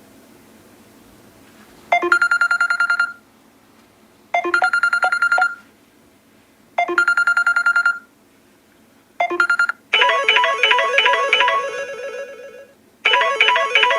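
Samsung Galaxy S6 Edge Plus stock ringtones. First comes an electronic trilling ring, three rings about two and a half seconds apart, each just over a second long, with a fourth cut off short. Then, about ten seconds in, a different ringtone starts: a melodic phrase of quick notes that fades and starts again about three seconds later.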